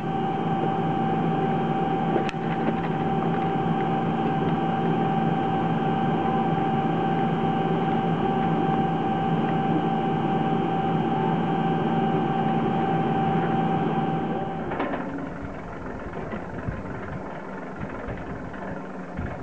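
Ski tow's bullwheel station machinery running: a steady hum with a constant whine, and one sharp click about two seconds in. About fifteen seconds in it cuts to a much quieter rushing sound with no whine.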